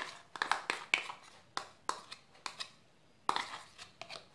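A metal spoon scraping and knocking against a small bowl as egg yolk is scraped out of it: a string of short, irregular clicks and scrapes.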